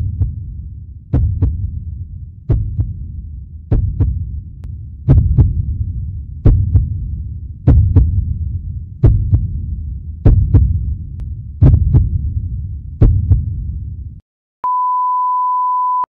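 Heartbeat sound effect: a slow, steady run of double thuds (lub-dub) about every 1.3 seconds over a low rumble. The beats stop about two seconds before the end, and a steady one-tone flatline beep follows.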